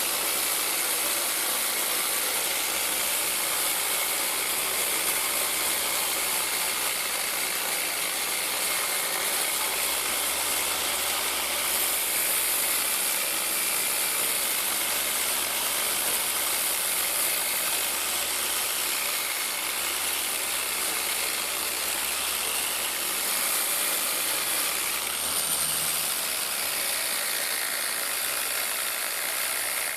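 Power tool cleaning down the metal of a lamp post, a steady hissing grind.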